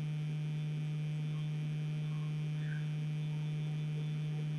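Steady low electrical hum with fainter higher overtones, unchanging throughout.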